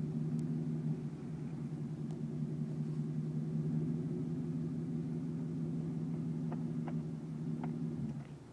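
Brabus S69's twin-turbo V12 running steadily at low revs, then switched off about eight seconds in. A few light clicks come shortly before it stops.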